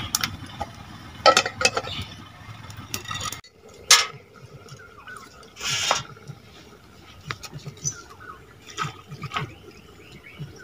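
Stainless-steel kitchen utensils clinking and knocking: a spoon, bowls and a pan lid. There are short splashes of water in a steel bowl, the loudest a sharp knock about four seconds in and a half-second splash near six seconds.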